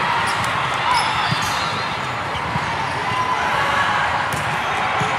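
Volleyballs being struck and bouncing, short sharp thuds scattered over a steady din of crowd chatter echoing in a large hall during a rally.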